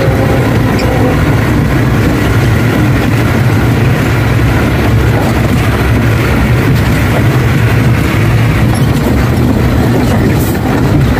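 Ashok Leyland truck's diesel engine running steadily under way, heard from inside the cab as a loud, even low drone.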